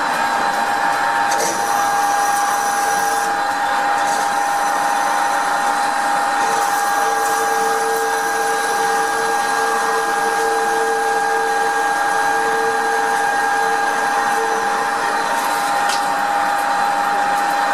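CNC turning-milling lathe machining a metal part: the spindle runs with a steady whine over the hiss of coolant spray. A higher-pitched cutting tone joins briefly about a second and a half in, then again for about nine seconds through the middle.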